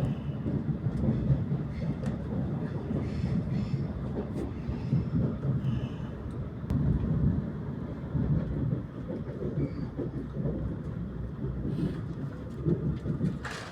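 Passenger train running noise heard inside the carriage: a steady low rumble of wheels and motors on the rails, with faint clicks.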